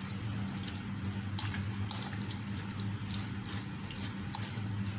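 Hand squishing and rubbing raw chicken fillets in a wet spice marinade on a plate: irregular soft squelches over a steady low hum.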